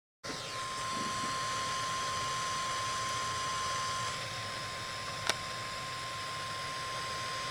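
NOAA Weather Radio 1050 Hz warning alarm tone: a single steady, unbroken tone over radio static. It starts abruptly after a moment of silence, with a brief click about five seconds in. The tone signals that a warning broadcast follows, here a tornado warning.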